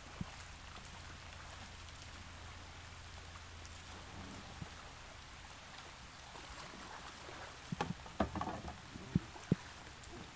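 Light rain pattering on a river's surface, with paddle splashes from a wooden canoe. About three-quarters of the way through comes a handful of sharp knocks.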